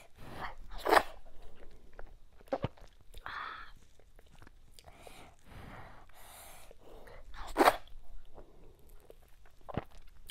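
Close-miked eating sounds of fufu with okra soup taken by hand: wet chewing and lip smacking, with two louder smacks about a second in and about three-quarters of the way through.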